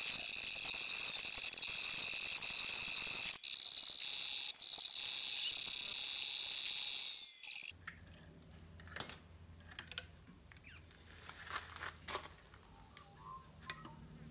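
A loud, dense chorus of chirping insects for most of the first half, stopping abruptly at a cut. Then a much quieter stretch follows, with a low steady hum and scattered small clicks and light knocks as the cleaver is unclipped and lifted out of the electrolysis rust-removal bucket.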